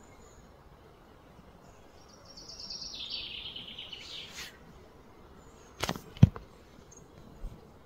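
A rapid, high-pitched trilling call that steps down in pitch, running from about two seconds in to about four and a half, over a faint outdoor background. About six seconds in come two sharp knocks, the second one the loudest sound.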